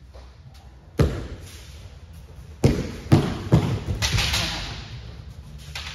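Kendo practice impacts: shinai strikes and stamping footwork thumps. There is one sharp hit about a second in, then a quick run of hits about half a second apart.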